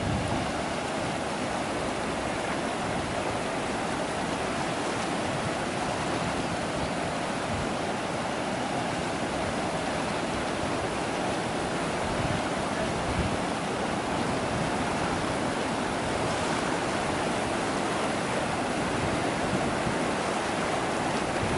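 Aeration tank of an activated-sludge sequencing batch reactor in its aeration phase: air from submerged diffusers bubbling up and churning the mixed liquor, a steady rushing of water.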